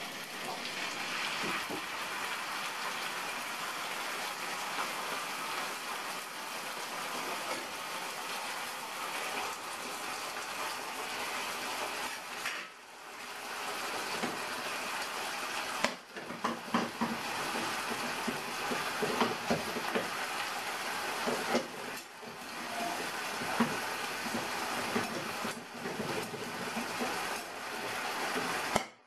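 Turkey breast fillets frying in olive oil in a pan: a steady sizzling hiss, with scattered spitting pops that come more often from about halfway through.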